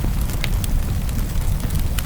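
Wood fire crackling in a fireplace, with scattered sharp pops a few times a second over a steady low rumble.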